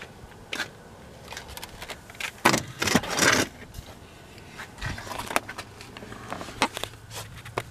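Handling noise from someone moving about inside a car's cab: scattered clicks and taps, with a louder rustling scrape about two and a half to three and a half seconds in.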